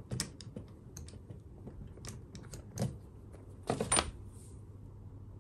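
Small hard clicks and clinks of an Axial Capra crawler wheel being fitted onto its axle's hex hub. A cluster of louder knocks comes about four seconds in.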